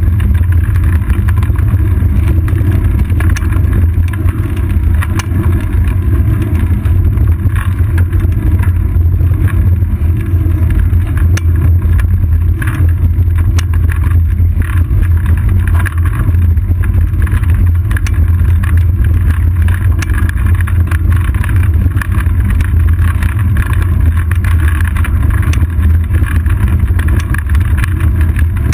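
Steady low rumble of wind and road vibration picked up by a seat-post-mounted GoPro Hero 2 on a moving road bicycle, with scattered small rattling clicks.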